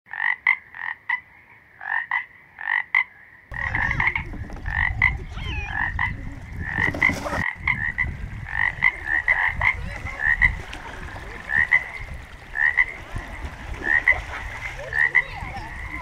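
Frogs croaking at a pond: short calls repeated in quick clusters throughout. A low rumble joins underneath from about three and a half seconds in.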